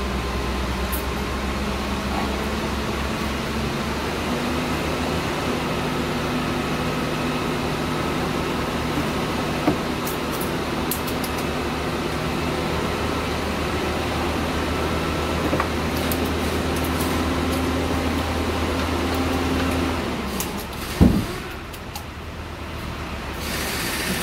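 Steady low mechanical hum of running machinery, with a few light metallic clicks, that stops about 20 seconds in; a single loud knock follows about a second later.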